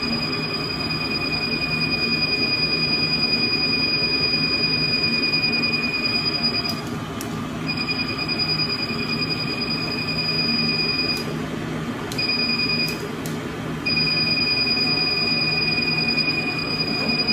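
Handheld laser skin-treatment applicator beeping with a steady high tone while it fires, in stretches of several seconds that break off and restart three times, one of them only a brief beep, over a constant low machine hum.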